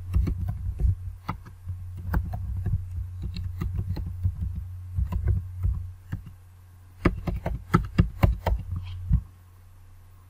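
Computer keyboard typing: irregular runs of keystrokes with a pause about six seconds in, then a louder run of keys, over a steady low hum.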